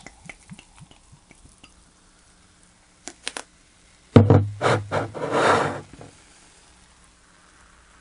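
Carbonated grape soda poured from a glass bottle into a plastic cup, with small trickling ticks. About four seconds in, the glass bottle is set down on the desk with a heavy knock and a few lighter knocks, followed by a short hiss. A faint fizz of the soda in the cup is left near the end.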